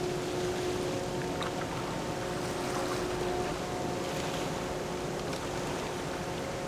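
Steady machinery drone of the large container ship ONE Innovation passing close, several steady humming tones over an even rushing noise.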